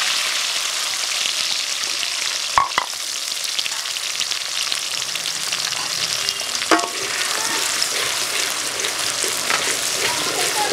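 Chopped onion and garlic sizzling steadily in hot oil, being stirred in a large metal pan. Sharp knocks come twice in quick succession about two and a half seconds in, and once more near seven seconds.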